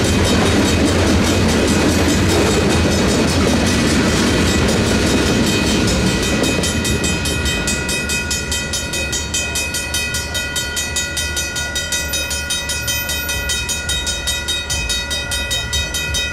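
Freight cars rolling past with wheel clatter, the rumble fading about six seconds in as the train clears. Railroad crossing bells, a Griswold mechanical bell and a WCH electronic bell, keep ringing in rapid, steady strokes.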